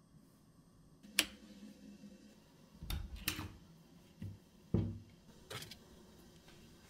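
Tins and packets handled on a kitchen shelf: a sharp click about a second in, then several short knocks and dull thuds as a metal tin is moved, and one more click near the end.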